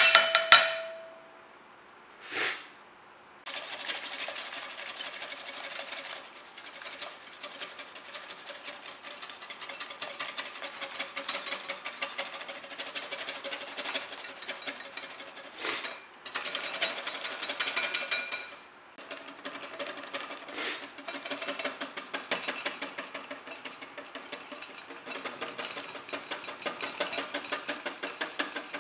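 A ringing metallic clang, then a fast, steady mechanical rattle from a small machine that runs on with a few brief pauses.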